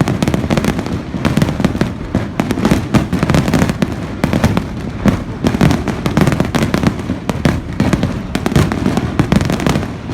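Aerial fireworks display: many bangs and crackles following close on one another, overlapping into a continuous barrage.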